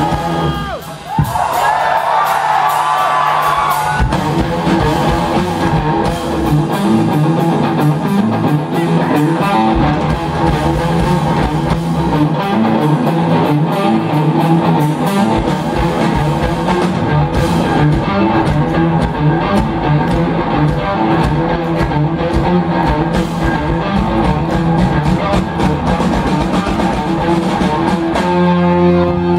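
Live rock band playing loud: distorted electric guitars and drum kit, from a short lead-in of wavering high tones to the full band coming in hard about four seconds in, with vocals at times.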